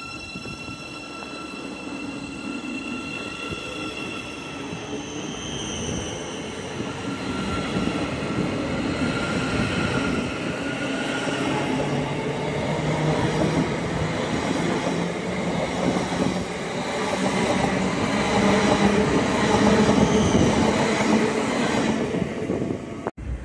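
Thameslink Class 700 (Siemens Desiro City) electric multiple unit running past, its electric traction equipment whining in several tones that rise in pitch over the first few seconds as it picks up speed. Wheel and carriage rumble and rattle then build and get louder as the train's carriages pass, easing near the end.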